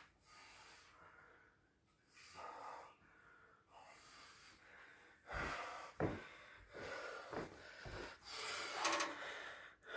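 A person breathing hard and audibly: faint at first, then a series of heavy breaths from about five seconds in, one with a slight wheezy whistle near the end.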